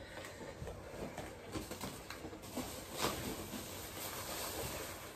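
Thin plastic shopping bags rustling and crinkling quietly and irregularly as they are handled and lifted out of a storage bin.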